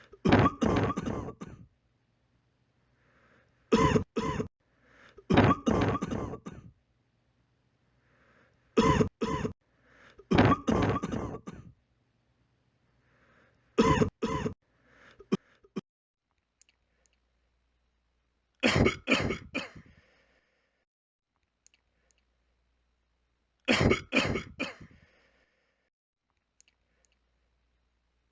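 A person coughing over and over in short bouts of two or three quick coughs, the bouts a few seconds apart with quiet between.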